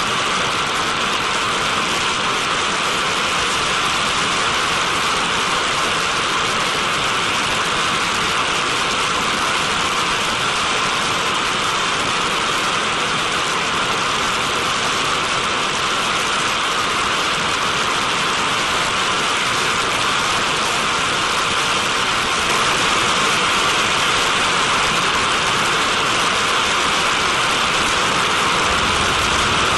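Turbojet engine of a TMS-65 decontamination truck blasting out a plume of spray: a loud, steady, hissing rush that keeps on without a break.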